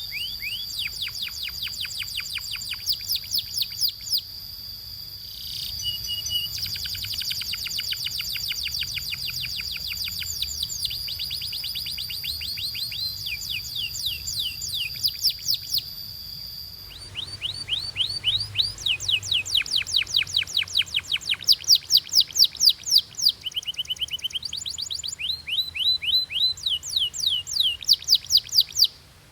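Canary singing: fast trills of rapidly repeated sweeping notes, changing from one run of notes to the next. A steady high tone sits under the song for the first half and stops partway through.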